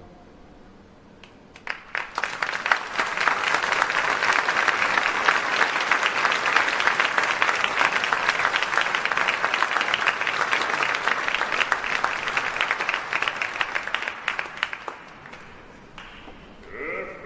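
Audience applauding at the end of an opera aria. A few scattered claps come about a second and a half in and swell quickly into dense, steady applause. It dies away about two seconds before the end.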